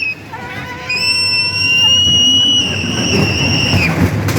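Ghost train ride: a high, steady whistling tone held for about three seconds, slightly rising, with a lower set of tones under it early on, over the low rumble of the ride.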